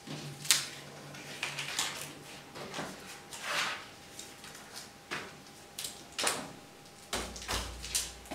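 Paper rustling with soft taps and knocks as a sheet of paper is pressed and smoothed flat against a chalkboard, with a low bump near the end.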